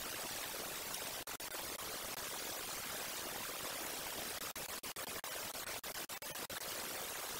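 Steady static hiss from an outdoor wildlife camera's microphone. It is cut by brief dropouts in the sound, twice about a second in and several times in quick succession later on.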